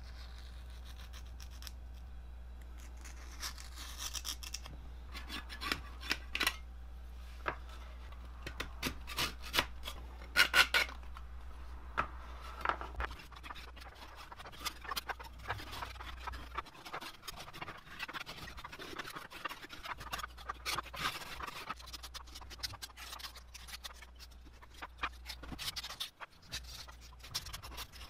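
A scraper blade scraping softened, crunchy old paint off a metal worm gearbox housing, in many short, irregular scratchy strokes.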